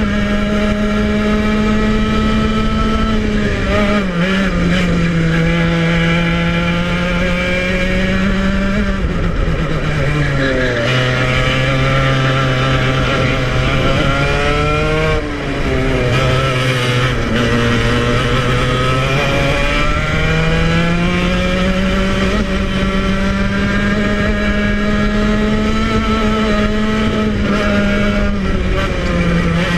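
Club100 115cc TKM two-stroke kart engine running at racing revs, heard onboard. The revs dip slightly about four seconds in, then drop further around ten seconds in and stay low for about eight seconds before climbing back up as the kart accelerates out of a slow section.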